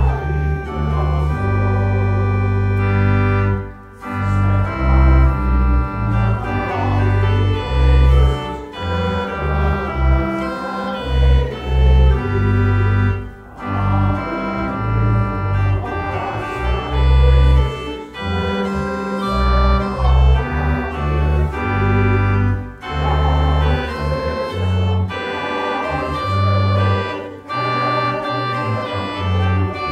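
Organ playing a hymn in full held chords over strong bass notes, with short breaks between phrases.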